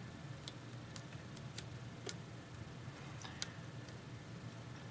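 Several sparse, irregular clicks of lock pins as a pick works up and down the pin stacks of a pin-tumbler lock, a clicky lock that the picker thinks holds many serrated pins.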